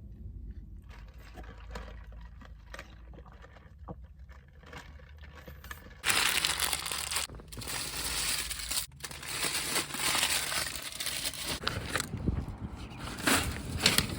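Faint chewing and food-wrapper crinkling with small clicks, then about six seconds in an abrupt cut to a loud, steady rushing noise that runs on with a few brief dips.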